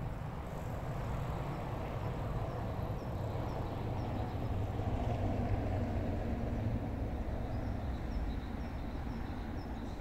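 Steady rumble of city road traffic, swelling gently around the middle as a vehicle passes, with faint repeated bird chirps.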